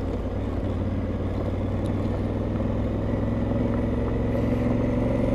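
Honda parallel-twin motorcycle engine running steadily at low road speed, with tyre and wind noise from riding a dirt road. The engine note firms up slightly near the end.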